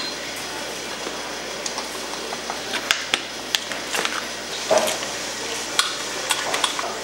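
Scattered small clicks and metallic clinks of hand work at a dirt bike's radiator and its hose clamps as the hoses come off, over a steady background hiss.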